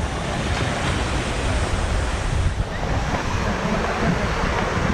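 Sea surf washing onto a beach, with wind rumbling on the microphone.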